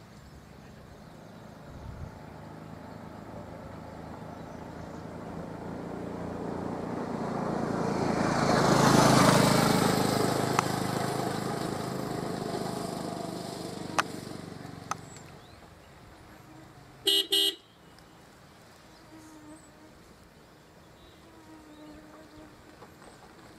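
A road vehicle drives past, its engine and tyre noise swelling slowly to a peak and fading away. A moment later a car horn gives two quick toots.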